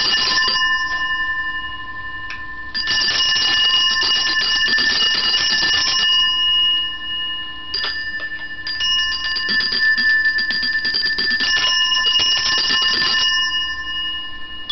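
Two small handbells shaken hard together in several bouts of rapid, clattering ringing. Each bell has its own pitch, and their tones keep ringing on between the bouts.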